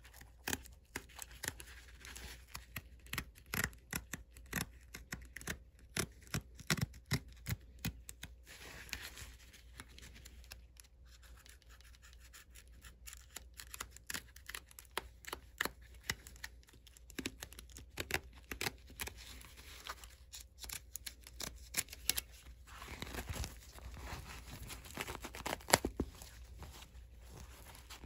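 Knife cutting and picking through the old stitching of a leather boot upper on a metal shoe stand: a run of short, irregular scratches and snaps as threads break and the canvas lining pulls away. It is busiest in the first several seconds and again near the end, with a quieter stretch in between.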